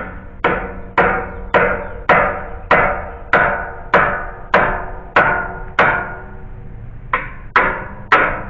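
Hammer blows in a steady run, about two a second, each ringing briefly: eleven strikes, a short pause, then three more. They are driving at a tight spiral nail to work it loose from the deck framing.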